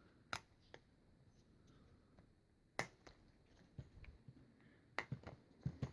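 Faint, scattered plastic clicks and snaps, about seven in all, as the two halves of a Syma X5C quadcopter's plastic body shell are prised apart by hand.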